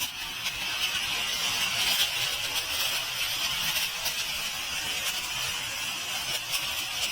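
A 500 g firework fountain spraying: a steady hiss that starts suddenly, with faint crackles through it.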